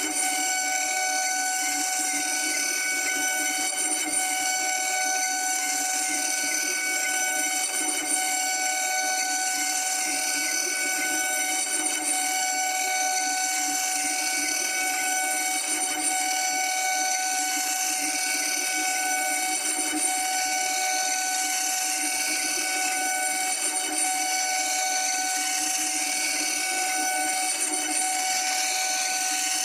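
CNC router spindle running at constant speed while milling, a steady high whine with several fixed tones over a hiss.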